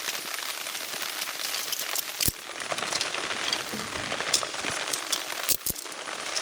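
Steady rain falling, with a few sharp clicks standing out above it, the loudest about two seconds in and again near the end.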